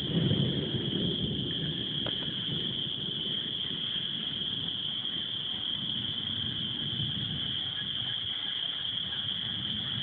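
A steady, high-pitched chorus of calling frogs, unbroken throughout. Under it runs a low rumble that is strongest in the first second or so.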